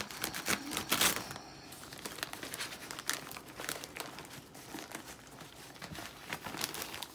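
Newspaper and paper flyer wrapping crinkling and rustling as an orchid is unwrapped by hand: irregular crackles, loudest about a second in.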